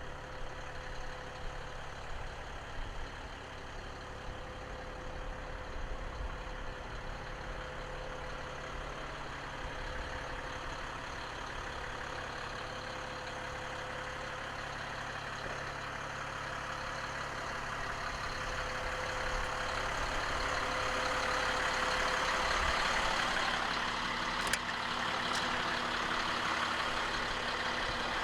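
Caterpillar C7 six-cylinder turbocharged diesel of an M1093A1 MTV 6x6 truck running steadily, with a low rumble and a steady whine. It grows somewhat louder in the last third, and a couple of sharp clicks come near the end.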